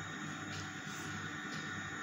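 Steady background hum with an even hiss: room tone, with no distinct event.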